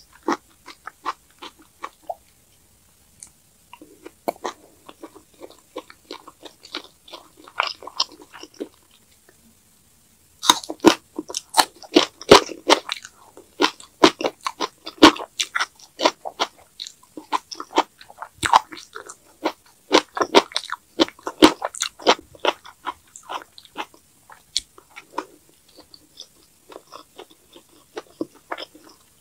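Close-miked eating sounds: soft, wet chewing at first with short pauses, then from about ten seconds in loud, crisp crunching and chewing of green onion kimchi, which tails off into quieter chewing near the end.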